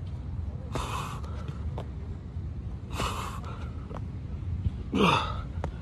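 A man's heavy breathing during burpees: two sharp gasping breaths about two seconds apart, then a voiced grunt that falls in pitch near the end, over a steady low rumble.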